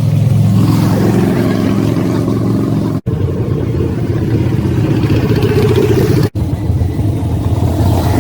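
Motorcycle engines running steadily, in short clips joined by two abrupt cuts, each a brief dropout in the sound.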